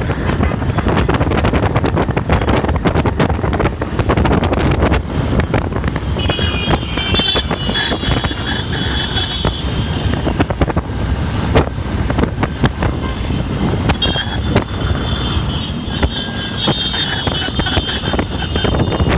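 Many motor scooter engines running as a long column of scooters rides past, a steady mass of engine and tyre noise, with wind buffeting the microphone.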